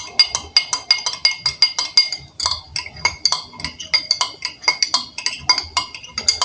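A spoon stirring a drink in a glass, clinking against the glass about four times a second, each clink ringing briefly.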